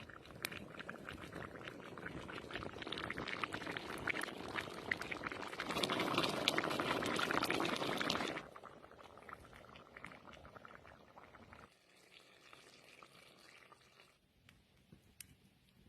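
Liquid bubbling and sizzling in a cooking pan, a dense crackling hiss that builds to its loudest about six to eight seconds in, then drops off suddenly and dies down.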